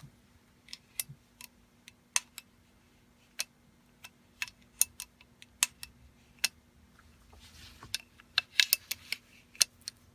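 Irregular sharp clicks and taps from handling an FX Impact .30 air rifle's parts during reassembly, with a quick cluster of clicks near the end. A faint steady hum underneath.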